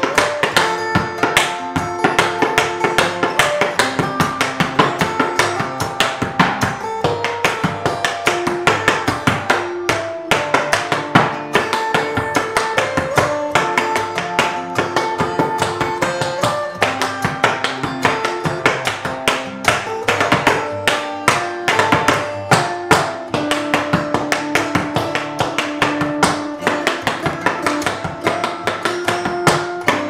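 Tap shoes striking a wooden tap board in quick rhythmic steps, over an acoustic guitar playing a pop song.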